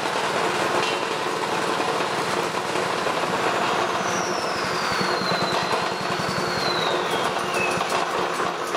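Small engine running steadily, belt-driving a Fisher & Paykel Smart Drive washing machine motor used as a generator, with an electric arc burning at its output. A thin whistle slides down in pitch through the middle.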